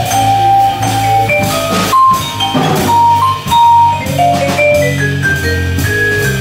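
Live jazz waltz: a vibraphone solo, its struck bars ringing out in a running melodic line, over walking bass notes and a drum kit.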